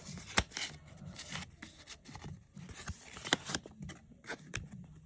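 Packaging being handled during an unboxing: scattered sharp clicks and taps with light rustling, the loudest click about half a second in and another about three seconds in.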